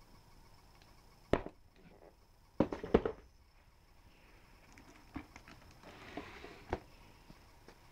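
Cardboard puzzle boxes being handled and moved: a knock about a second in, a cluster of louder knocks around three seconds in, then softer taps and rustling.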